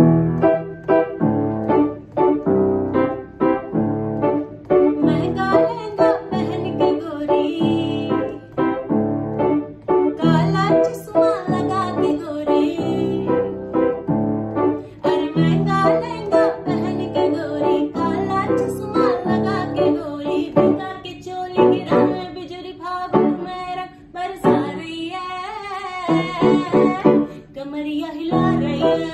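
A woman singing live to a piano accompaniment played in steady, rhythmic chords.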